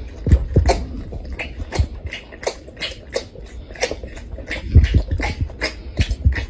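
Tiger sucking milk from a feeding bottle: wet, irregular smacking clicks about three a second, some with a deep thump as it pulls on the teat.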